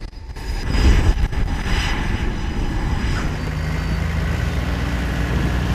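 Loud rumbling noise on a carrier flight deck. About three seconds in it settles into the steady hum of an aircraft tow tractor's engine pulling a jet.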